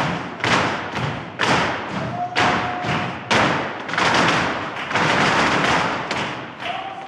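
A group of flamenco dancers' heeled shoes stamping together on a wooden studio floor in Farruca footwork, the strongest stamps about once a second, each ringing on in the echo of a large hall.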